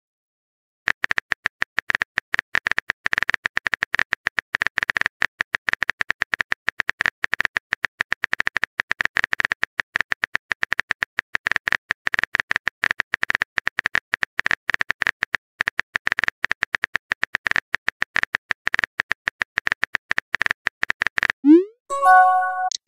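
Rapid phone-keyboard typing clicks, a long dense run of sharp ticks as a text message is typed out, starting about a second in. Near the end the clicks stop and a short rising swoop with a few chime tones sounds as the message is sent.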